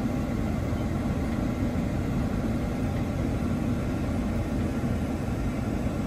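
Steady low rumble of a vehicle on the move, engine and road noise at an even level.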